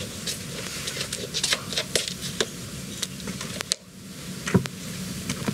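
Soft rustling of bedding and a plush teddy bear being handled: scattered short scratchy noises over a steady hiss.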